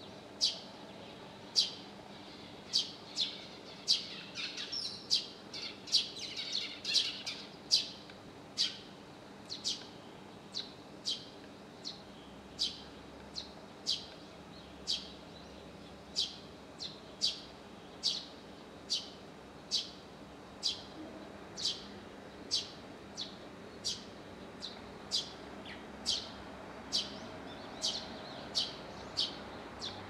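Eurasian tree sparrow chirping: short, sharp, high chirps repeated roughly one to two times a second, with a burst of busier twittering about four to eight seconds in.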